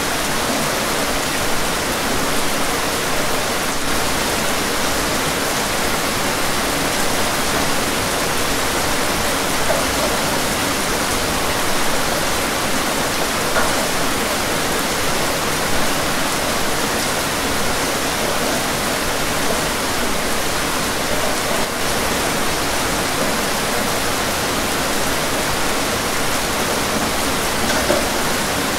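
Steady rain falling, an even hiss with a few slightly louder moments.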